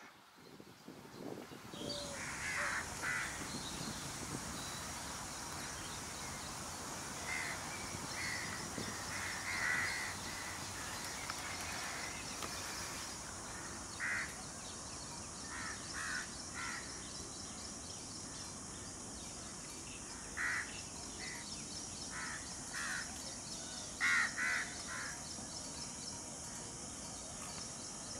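Short harsh bird calls repeated at irregular intervals over a steady high-pitched hiss that starts about two seconds in.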